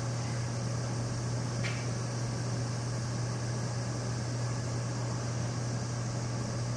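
Steady low mechanical hum over a constant hiss, with a faint brief tick about a second and a half in.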